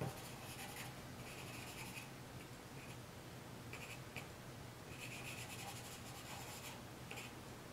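Charcoal pencil scratching on drawing paper in short groups of quick little strokes with brief pauses, as small pine-tree tops are sketched in. Faint.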